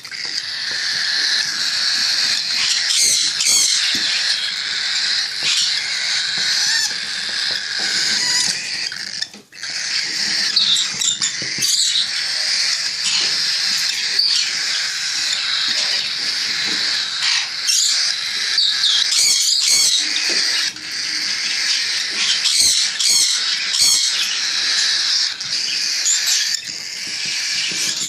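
Pet parrots chattering and squawking without pause, with many high, harsh calls overlapping one another and a brief break about nine seconds in.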